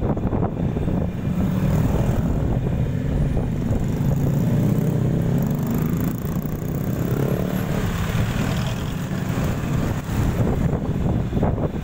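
Steady road-vehicle running noise mixed with wind rushing over the microphone while riding along a road. Past the middle, an engine note briefly rises and falls.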